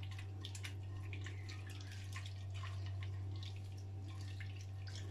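A hand stirring a thin liquid spice marinade in a glass bowl: small irregular wet splashes and drips, over a steady low hum.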